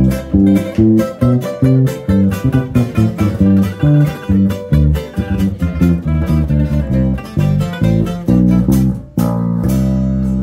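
Instrumental break of a ranchera-style song played live on guitars with a bass line, notes picked in a quick steady rhythm. About nine seconds in the band stops on a chord that is held ringing.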